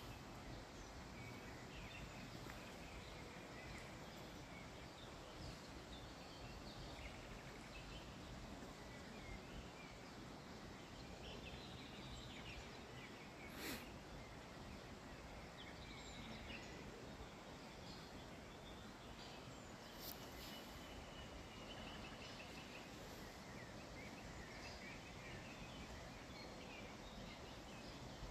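Faint outdoor ambience: a steady low hiss with scattered, faint bird chirps throughout, and a single sharp click about halfway through.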